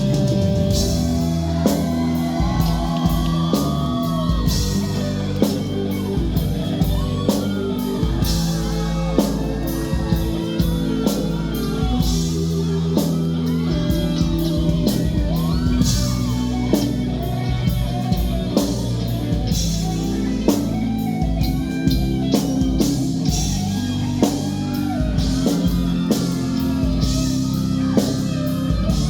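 Live rock band playing: a steady drum kit beat under electric guitar and bass, with singing.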